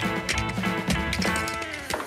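Background music with a steady beat, its tones sliding down in pitch near the end.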